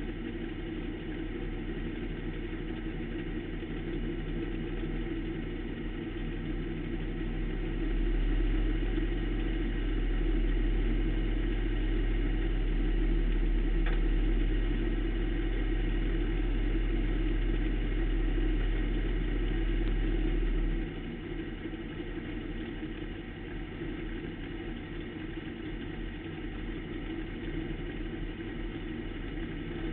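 Pro stock race car engine running steadily, heard from inside the car. A deeper low drone comes in louder about eight seconds in and cuts off suddenly about twenty-one seconds in.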